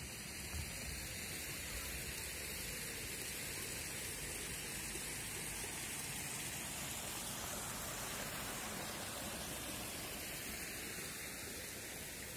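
Steady outdoor background hiss with a fluctuating low rumble and no distinct event.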